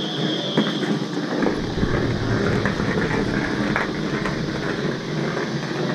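Outdoor dek hockey play: scattered sharp clacks of sticks and ball on the plastic sport-court tiles over a steady noisy rumble that deepens about a second and a half in.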